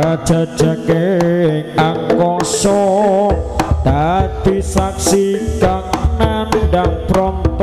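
Live jaranan gamelan music: busy hand-drum strokes under a wavering melodic line, with a deep low tone joining about three seconds in.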